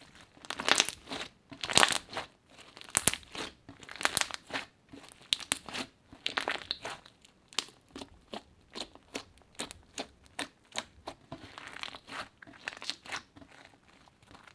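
Crunchy slime being squeezed and worked by hand, giving a run of irregular crackling pops and crunches, loudest in the first few seconds.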